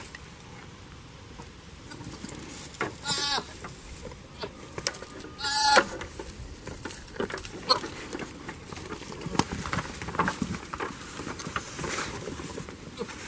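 Goats bleating, two short wavering bleats about three seconds and five and a half seconds in, with scattered light knocks and scuffs in between.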